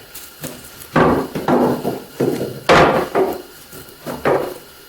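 Wooden pieces knocking against a wooden workbench as they are lifted, moved and set down. There are about seven knocks over three and a half seconds, the loudest near the middle.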